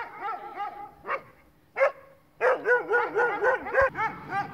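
A shepherd-dog puppy whining and yelping in quick, high, rising-and-falling cries. There is a short run of cries, a pause with one cry, then a longer, denser run over the second half.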